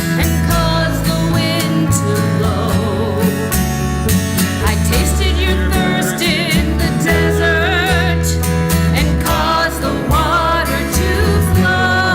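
A song: a singer holding notes with a wide vibrato over an instrumental accompaniment with steady bass notes.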